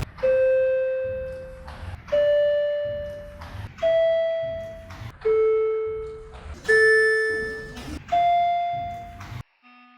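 Vertechs elevator arrival chime, a single electronic ding with a sharp start and a fade of about a second and a half. It repeats six times, each time at a different pitch, with a brief dropout near the end.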